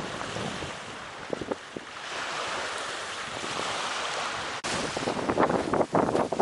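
Sea waves washing onto a beach, with wind buffeting the microphone in uneven gusts that grow stronger in the last couple of seconds.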